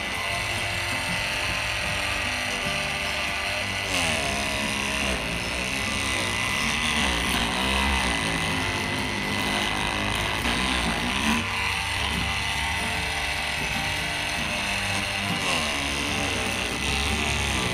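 INGCO CMLI2001 20V cordless oscillating multi-tool running steadily with a high whine as its blade cuts into a durian's husk.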